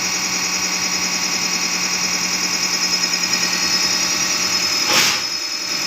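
Diesel fuel injection pump running on a test bench during a fuel delivery check: a steady mechanical drone with a constant hum and a high whine. A short hiss-like burst comes about five seconds in.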